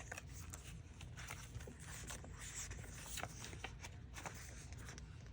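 Faint handling noise: light rustling with scattered small clicks and taps as stickers and sticker packaging are handled.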